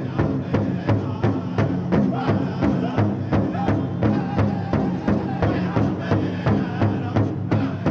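Powwow drum group striking a large hide-covered powwow drum in unison with padded drumsticks, a steady beat about two a second, with the group's voices singing a powwow song over it.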